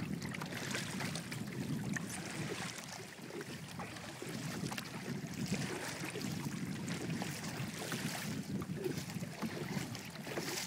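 Water sloshing and lapping against the hull of a small Walker Bay dinghy under way, with wind on the microphone.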